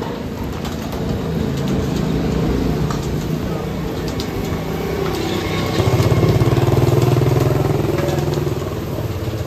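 Engines of passing street traffic, one running close and loud from about six to eight seconds in, then fading.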